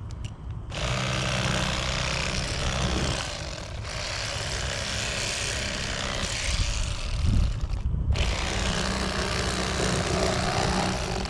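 Electric fillet knife running, its blades sawing through a crappie. The motor starts just under a second in, drops out for a moment about eight seconds in, then starts again.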